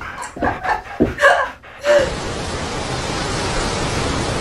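A few short bursts of a person's voice, then from about two seconds in a steady rushing noise of wind and surf.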